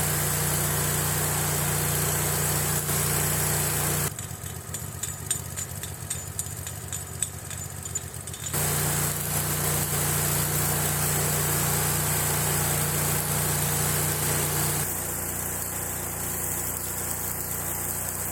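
Stick (SMAW) welding arc running stringer beads: a steady frying crackle over a low machine hum. About four seconds in it breaks into a few seconds of sputtering pops, then runs steady again, somewhat quieter near the end.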